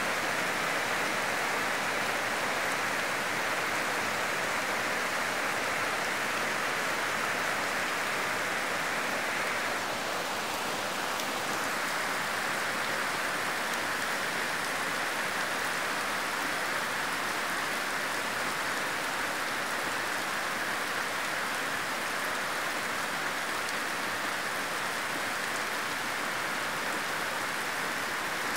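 Heavy rain falling steadily, an even hiss that eases slightly about ten seconds in.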